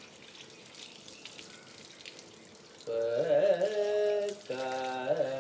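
Faint hiss of water from a garden hose running over a puppy being washed. About three seconds in, a man's voice comes in with long, sliding, drawn-out tones in two stretches, the loudest sound here.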